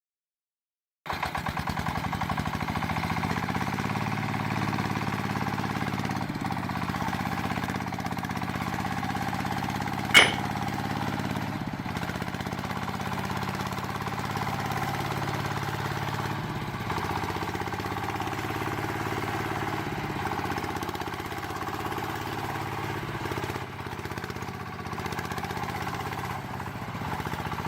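Small engine of a miniature DIY tractor running steadily, starting abruptly about a second in and stopping just before the end, with a single sharp click about ten seconds in.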